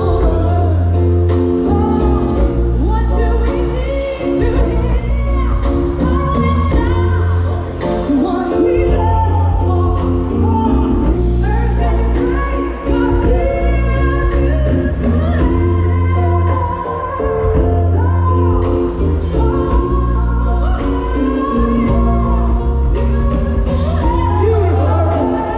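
Live choir singing with band accompaniment, a heavy bass line under the voices throughout.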